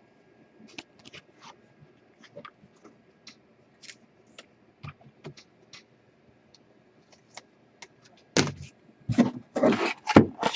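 Trading cards being handled: faint scattered clicks and scrapes of cards sliding against each other, then much louder rustling and crackling handling noises from about eight seconds in.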